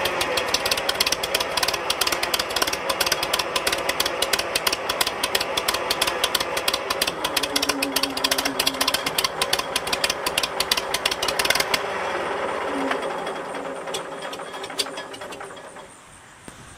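1960 Oliver OC-46 crawler loader's engine running with a rapid, even clatter; about twelve seconds in it slows and fades, stopping near the end as it is shut down.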